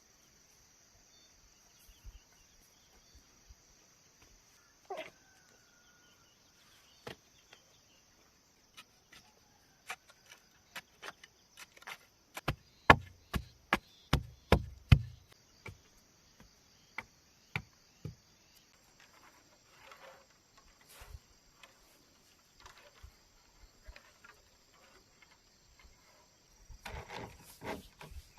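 Bamboo being chopped and knocked, scattered sharp blows with a quick run of about ten loud strikes about halfway through. A steady high insect buzz runs underneath.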